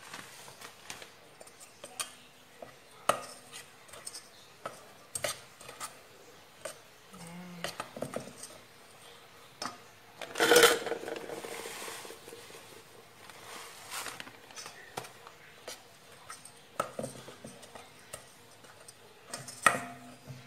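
Wire whisk mixing batter in a stainless steel bowl, with irregular clinks and knocks of the whisk against the bowl; a louder metallic clatter with a short ring about halfway through, and another sharp knock near the end.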